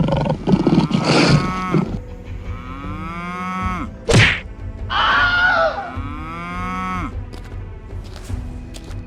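Cow mooing: a loud, rough call at the start, then two long moos, with a sharp whack about four seconds in, over a low rumble.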